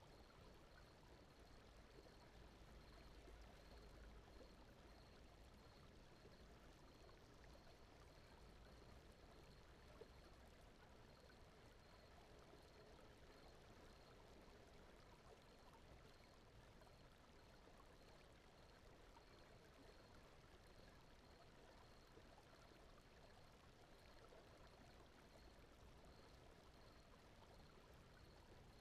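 Faint, steady brown noise: a soft, deep rushing hiss, with a faint high chirp repeating evenly through it.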